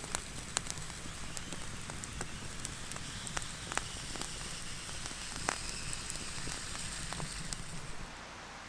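Wood campfire crackling, with irregular sharp pops over a steady hiss; it drops away suddenly about eight seconds in.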